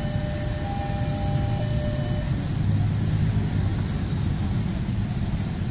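Steady engine noise of motorcycles and scooters crossing at a railway level crossing, a dense low rumble that swells a little past the middle. Two faint steady tones sound in the first two seconds and then stop.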